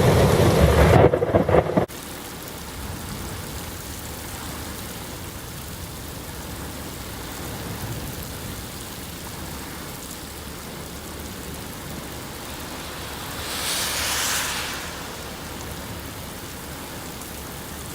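Heavy thunderstorm rain with gusty wind: a loud low rush for the first two seconds that stops abruptly, then steady rain hiss with one brief louder rush about fourteen seconds in.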